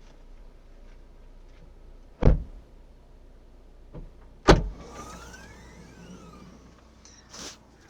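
Two loud knocks on a Kia Ceed about two seconds apart, with a softer knock just before the second and another near the end: the rear-right knock that the owner is chasing.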